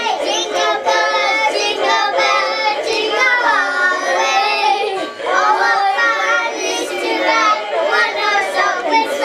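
A group of young children singing a song together, with a brief pause about five seconds in.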